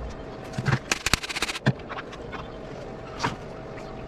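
A quick run of sharp clicks and knocks about a second in, then a single knock near the end, over a faint steady hum.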